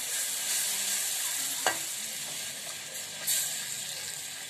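Butter-and-flour roux sizzling in a steel frying pan as milk is added, stirred with a wooden spatula. The hiss is steady, with a couple of sharp taps from the stirring.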